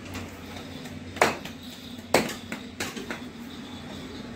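Goat meat being chopped with a heavy blade: three sharp strikes about a second apart.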